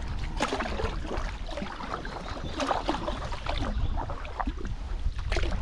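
Kayak paddle strokes splashing and dripping in the river water, in irregular splashes, over a steady low rumble.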